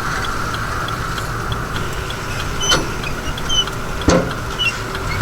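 A heavy machine's engine running steadily, with a few sharp knocks or clanks.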